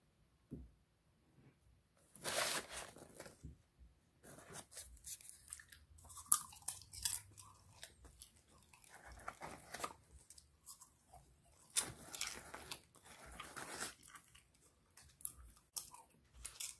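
Popped popcorn and its paper microwave bag crunching and crackling in irregular bursts, starting about two seconds in.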